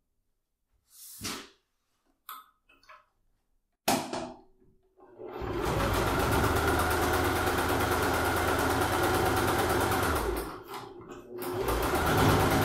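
Electric sewing machine stitching through fabric at a steady speed for about five seconds, pausing briefly, then running again near the end. Before it starts, a few short handling sounds, the sharpest about four seconds in.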